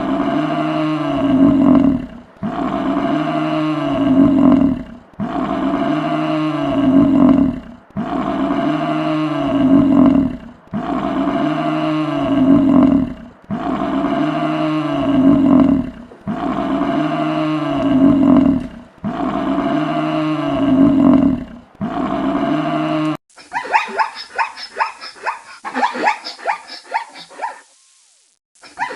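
An animal's low, drawn-out call, the same recording repeated about nine times, each call lasting about two and a half seconds with a short break between. Near the end it gives way to a different rapid series of short yelping calls.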